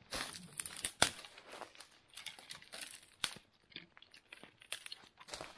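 Dead, frozen conifer twigs and branches snapping and cracking as they are broken off by hand for firewood, with rustling among the branches between the snaps. The loudest cracks come near the start, about a second in, and a little after three seconds.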